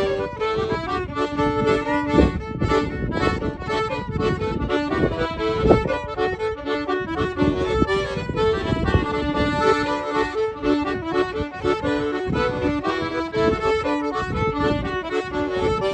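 A fiddle and a piano accordion playing a traditional jig together, a quick continuous run of notes with no break.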